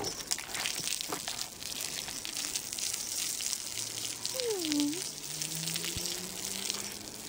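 Water from a hose spraying and splattering onto a horse's wet coat: a steady hiss. A short swooping tone sounds about halfway through.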